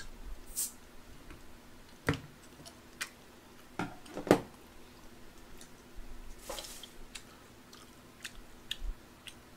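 A person chewing close to the microphone, with scattered small clicks and knocks; the sharpest knock comes about four seconds in. A short breathy rush follows a couple of seconds later.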